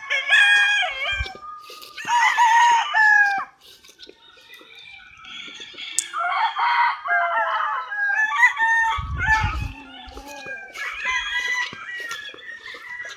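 Roosters crowing one after another, about five crows, some overlapping, with chickens clucking in between.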